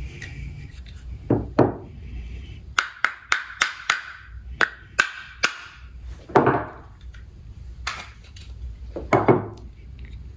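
Knocks and clicks of a VZ58 rifle's old upper handguard being worked loose and rotated off. Dull thumps come about a second in, again past the middle and near the end, with a quick run of about nine sharp clicks between them.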